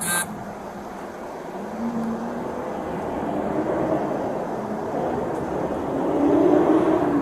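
Car engine and road noise, steady and with a low hum, growing louder toward the end.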